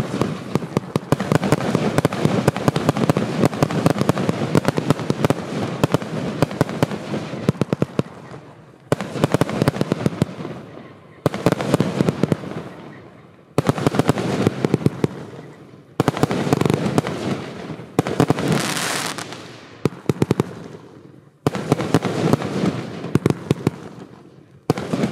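Consumer (F2) firework batteries firing: a dense run of rapid shots and crackle, then a series of separate volleys every two to three seconds, each starting suddenly and fading away, with a short hiss in one of them.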